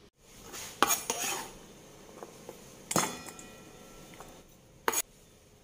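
A kitchen knife knocks and clinks against a stainless steel mixing bowl as chopped red onion is scraped off the blade into it: a few separate knocks. The loudest comes about three seconds in and leaves the bowl ringing briefly.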